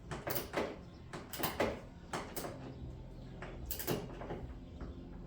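Irregular knocks and clacks of tools and parts being handled, about nine sharp hits, mostly in close pairs, over the first four seconds.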